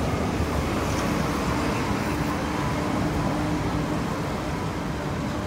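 Downtown city traffic noise: a steady low rumble of vehicles with general street hubbub, no single sound standing out.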